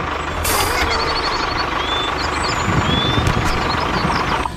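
Truck engine running steadily, with a burst of hiss like an air brake about half a second in. It cuts off abruptly near the end.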